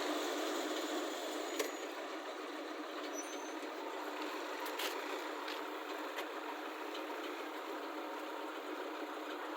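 Steady running noise of a heavy vehicle's engine, with a few faint clicks.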